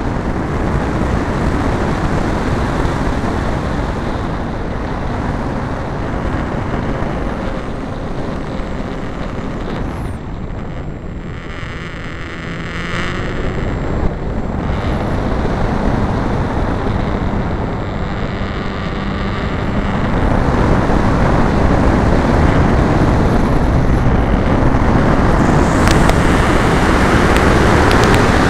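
Wind rushing over a camera mounted on a radio-control aerobatic model plane in flight, over the steady noise of its motor and spinning propeller. The rushing grows louder about two-thirds of the way in.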